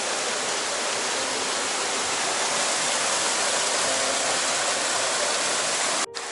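Waterfall pouring into a pool: a steady rushing of falling water, which cuts off abruptly near the end.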